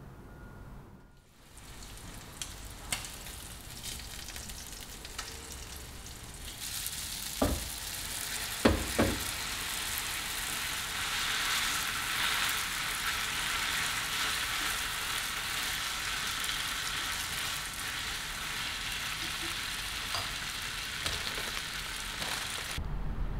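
Spaghetti and shrimp sizzling in a nonstick frying pan while being tossed with chopsticks. The sizzle grows loud about six seconds in, a few sharp knocks come soon after, and it cuts off suddenly near the end.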